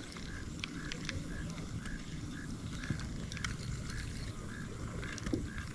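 Spinning reel being cranked to retrieve line, giving a short chirp that repeats about twice a second.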